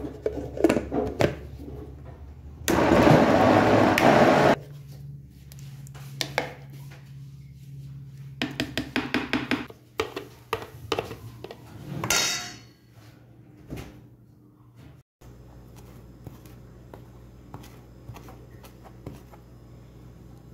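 A plastic blender jar's lid clicks into place, then the blender runs in one burst of about two seconds, grinding a garlic seasoning mixture. Then comes the clatter of the jar and a utensil against a stainless-steel bowl as the mixture is tipped out. Near the end there are soft knife taps on a plastic cutting board.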